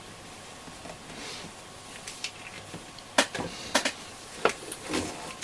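Sharp clicks and light knocks from handling the small transistor radio's plastic case on the bench, several in a row from about three seconds in.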